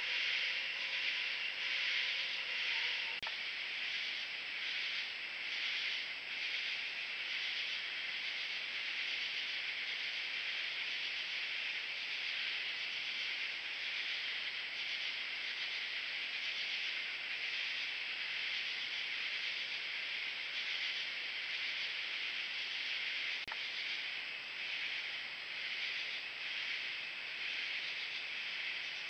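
Night insect chorus: a steady, high-pitched buzzing drone that pulses gently.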